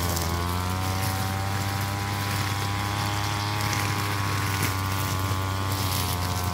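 Backpack brush cutter's small engine running steadily at high speed while cutting overgrown grass and weeds, its pitch holding nearly level.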